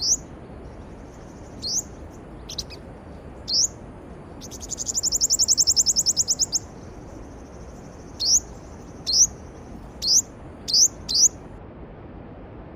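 A songbird calling over a steady rushing stream. It gives short rising chirps, then a fast trill of about ten notes a second in the middle, then a quick run of five chirps near the end.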